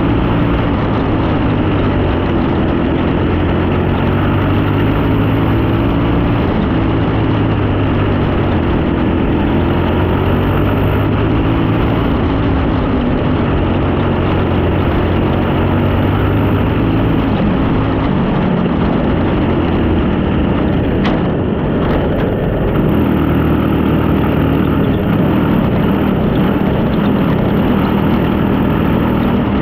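Junior sprint car's engine heard from on board at racing speed, its pitch rising and falling as the throttle is worked through the corners. One sharp click sounds about two-thirds of the way through.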